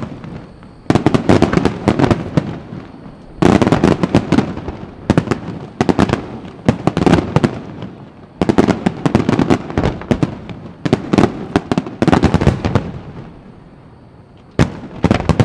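Fireworks display: aerial shells bursting in rapid volleys, many sharp bangs in quick succession in clusters with brief pauses between them. Near the end the firing lulls for about a second and a half before another volley.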